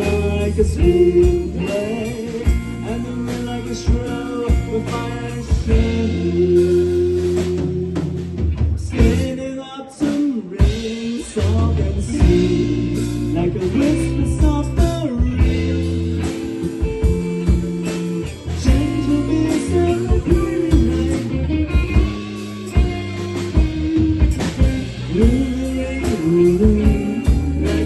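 A band playing a slow song: singing over guitar, bass guitar and drum kit, with a brief dip in level about ten seconds in.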